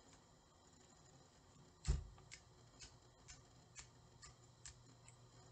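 Faint room tone with a series of light, sharp clicks at a steady pace of about two a second. The first, just under two seconds in, is the loudest and carries a low thump.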